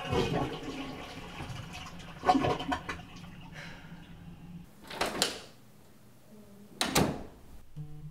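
Toilet flushing: a rush of water that lasts about four seconds as the bowl empties, followed by two short sharp knocks.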